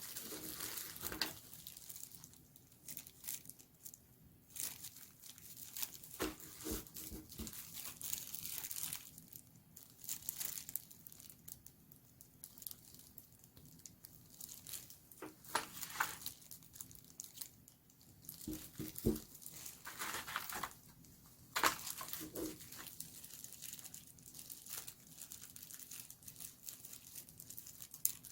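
Phone packaging being handled and unwrapped: plastic film and paper crinkling and tearing in irregular bursts, with scattered light taps and clicks.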